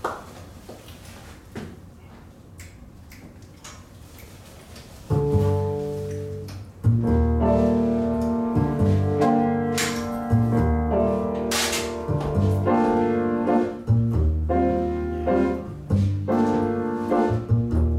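Jazz trio of acoustic piano, upright double bass and drum kit starting a tune in waltz time. After a few quiet seconds, a piano chord comes in about five seconds in, and the bass and drums join about two seconds later, with cymbal splashes soon after.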